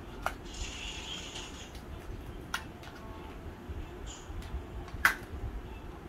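Hard plastic parts of a take-apart toy excavator clicking and knocking as the arm and bucket are handled and fitted together, with a brief scraping rustle about a second in. The loudest click comes about five seconds in.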